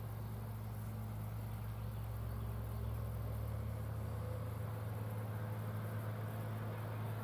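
John Deere tractor's diesel engine running steadily under load while pulling a field cultivator through plowed ground, growing slightly louder about three seconds in as the tractor comes closer.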